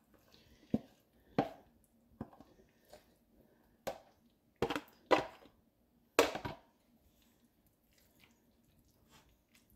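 A spoon knocking and scraping against a plastic container and the rim of a stainless steel saucepan as chicken pieces are tipped into thick sauce: a handful of sharp clicks and knocks over the first six seconds or so. After that, only faint stirring with a silicone whisk.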